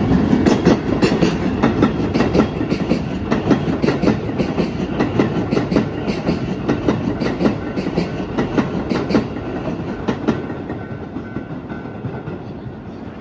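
Keisei 3700 series electric train passing over a level crossing, its wheels clattering rapidly over the rail joints, the clatter dying away over the last few seconds.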